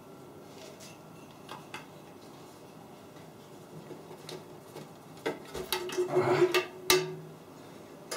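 Metal bread-machine baking pan from a Redmond RBM-M1902 being lifted out, turned over and knocked to free the baked loaf. A few faint clicks come first, then a short run of clattering metal knocks about five to seven seconds in.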